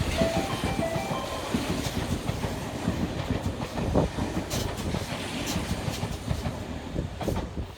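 Electric train passing at speed, its wheels clacking over rail joints, the rumble slowly fading. A chiming melody of short tones stops about a second in.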